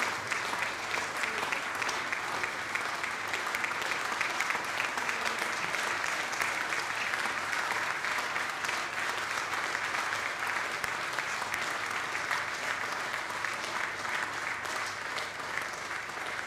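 Audience applauding: steady, sustained clapping from many people.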